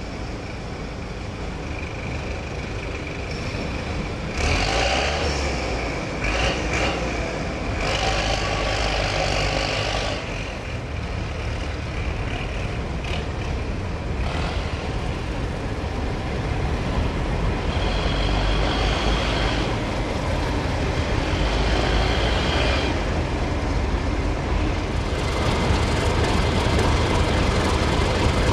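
BR Class 31 diesel locomotive's English Electric engine running as it hauls coaches slowly over pointwork, growing louder as it comes closer. High squeals come and go over it, typical of wheels grinding round the curved track.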